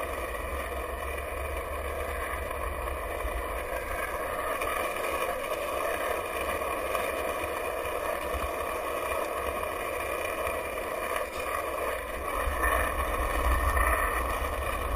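Skateboard wheels rolling steadily over asphalt, with wind buffeting the microphone; the wind rumble gets stronger near the end.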